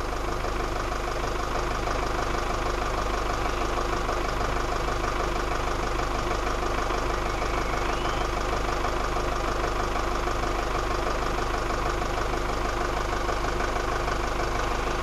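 Ford Transit 2.5-litre diesel engine idling steadily, heard from inside the cab.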